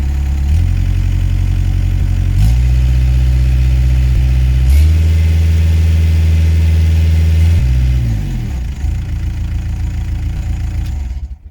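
Bobcat S130 skid steer's diesel engine running while warming up. It steps up in speed twice, drops back to a lower idle, then the sound cuts off abruptly near the end.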